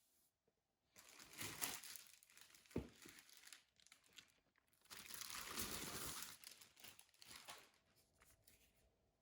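Crinkling and rustling in two spells, starting about a second in and again about five seconds in, with a single dull knock just before the three-second mark.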